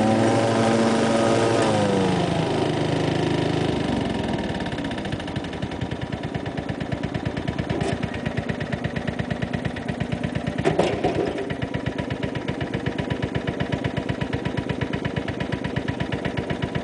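1994 Craftsman lawn tractor engine coming down from high revs to a low idle over the first few seconds, then idling with an even, rhythmic knocking pulse, with a single clank about 11 seconds in. The owner first took the knock for a rod knock but now suspects something else, since the oil is fine.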